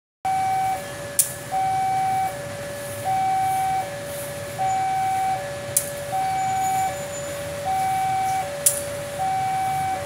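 Electronic two-tone warning alarm, a high tone and a lower tone alternating steadily about every three-quarters of a second. A few sharp clicks sound over it.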